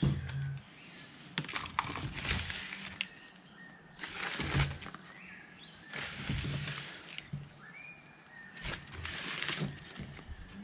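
Hands working potting mix and washed sand together in a plastic bucket: gritty rustling and scraping in irregular bursts.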